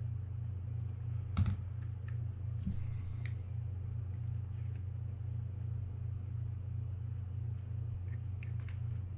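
Scattered light clicks and taps of metal and plastic spinning-reel parts being handled and fitted back together, the sharpest about a second and a half in and a few more near the end, over a steady low hum.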